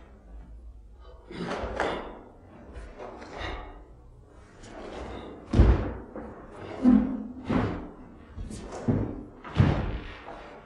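Karate kata movements: a series of sharp swishes and thumps about a second apart, from a cotton karate gi snapping with strikes and bare feet stamping on a wooden floor. The heaviest thump comes about halfway through.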